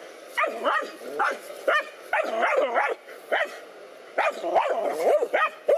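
Dogs barking in quick runs of sharp barks at a snake, with a short pause about three seconds in before the barking picks up again.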